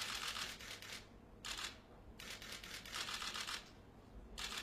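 Camera shutters firing in rapid bursts of fast clicking: four bursts, the longest about a second and a half.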